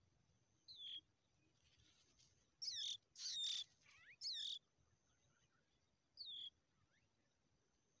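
Skylark nestlings giving short, high, downward-sliding begging calls, with the gape open for food. There are about five calls, three of them close together and loudest in the middle.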